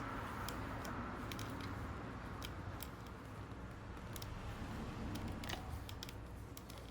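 Scattered light clicks and taps of small metal parts being handled over a soft hiss that fades during the first few seconds.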